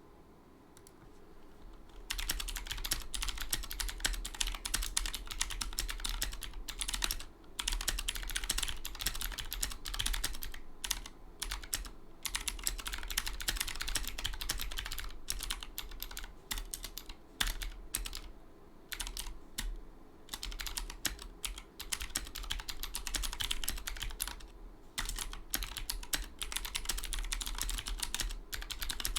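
Fast, continuous typing on a Drop ALT mechanical keyboard with unlubricated Cherry MX Blue switches and no switch films. It starts about two seconds in, with a few brief pauses, over a low steady hum.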